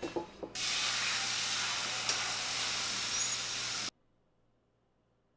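Egg whites sizzling in a hot skillet on a gas stove: a loud, steady hiss that starts abruptly after a couple of light knocks and cuts off suddenly.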